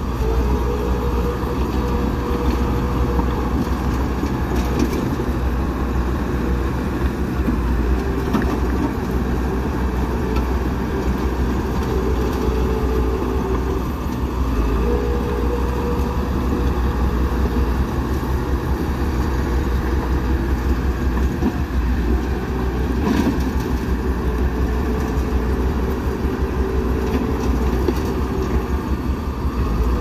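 Komatsu D31P crawler bulldozer's diesel engine running steadily under load as it pushes wet dirt with its blade.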